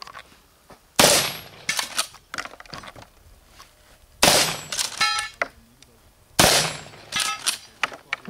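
Three shots from a Benelli Supernova Tactical 12-gauge pump-action shotgun, about a second in, about four seconds in and about six and a half seconds in. Each is followed by the clack of the pump being worked to chamber the next shell. A steel target rings briefly after the second shot.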